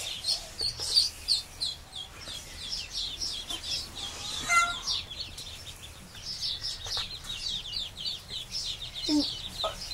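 Mallard ducklings peeping, many short, high, downslurred peeps from the whole brood overlapping one another without a break.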